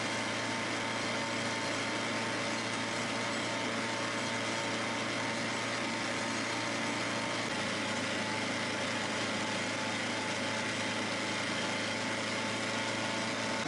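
Snowmobile engine running at a steady cruising speed, heard from the driver's seat: an even, unchanging drone with a hiss of track and air over it.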